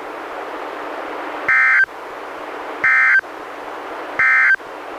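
NOAA Weather Radio SAME end-of-message (EOM) code: three short, buzzy digital data bursts about 1.4 s apart, heard over steady radio hiss. The bursts signal the end of the alert message, here a Required Weekly Test.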